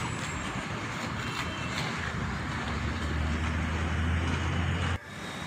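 Concrete pump machinery running steadily during a slab pour, with a low engine hum that grows stronger about halfway through. The sound cuts off suddenly about five seconds in.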